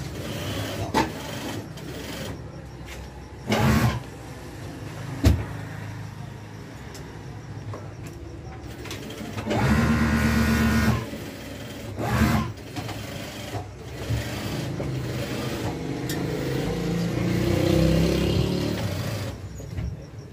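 Industrial sewing machines running in several short bursts of stitching, each a second or so long, the longest about ten seconds in. There is shop clatter between them, including one sharp click about five seconds in.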